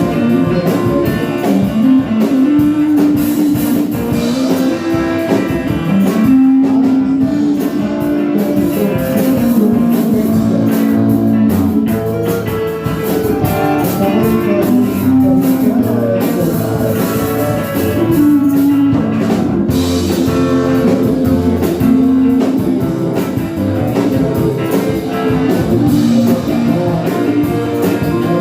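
Band music with a guitar playing a melody over a drum kit beat.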